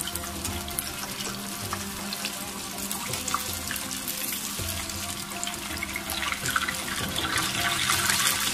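Samosas deep-frying in hot oil in a kadai on a medium flame: a steady sizzle with fine crackling of bubbling oil, growing louder near the end.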